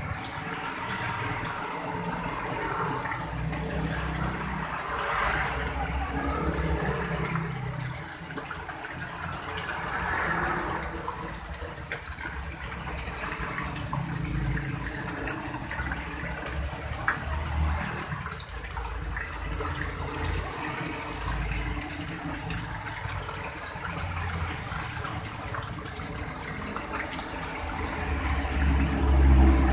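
Water splashing steadily into a small garden fish pond from pipe spouts and a small artificial-rock waterfall, with a low rumble swelling near the end.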